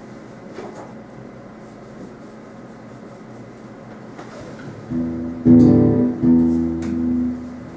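Low room noise, then about five seconds in an acoustic guitar strums a few chords that ring on.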